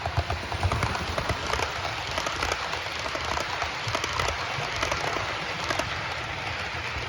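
OO gauge model train hauling Accurascale TransPennine Express Mk5 coaches around the layout: a steady running rumble and hiss with rapid irregular clicking of the wheels over the rail joints. It gets louder right at the start.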